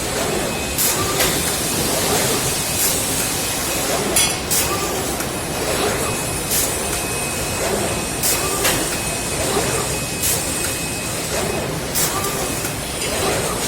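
Factory machinery running on an automated chest freezer production line: a steady din broken by short hisses every second or two.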